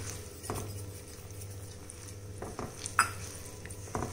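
A spatula stirring a thick spice mixture in oil in a stone-coated wok, with a few sharp clinks of a small steel bowl and utensils against the pan. The loudest clink comes about three seconds in.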